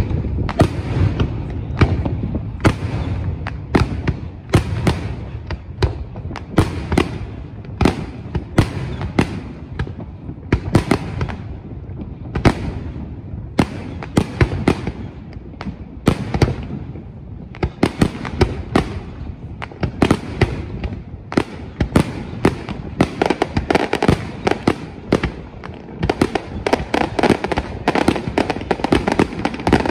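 Aerial firework shells bursting over water, a rapid run of sharp bangs one after another with crackling between them. The bangs come thicker and denser in the last few seconds.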